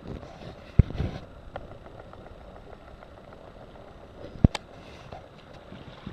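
Low rumble of wind on the microphone over shallow water, broken by two sharp knocks, about a second in and again about four and a half seconds in.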